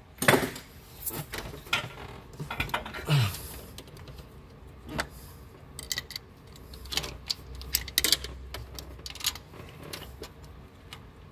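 Scattered metallic clicks and light taps of a hand pick tool working among the camshaft and valvetrain of a 4.7-litre V8 cylinder head, prying a rocker arm out from under the camshaft.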